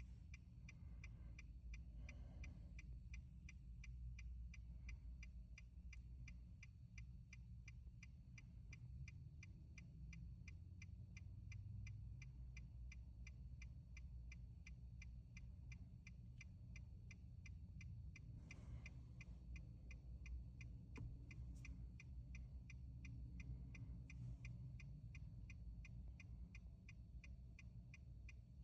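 Faint, steady ticking, about two ticks a second, over a low rumble.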